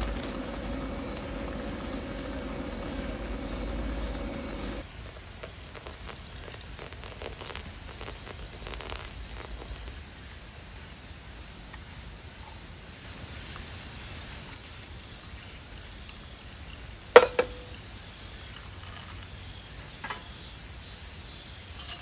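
Insects chirping steadily in the background in a thin, high trill. A low steady hum runs through the first few seconds and cuts off suddenly. About 17 seconds in comes a single sharp clink with a short ring, and a faint tick follows a few seconds later.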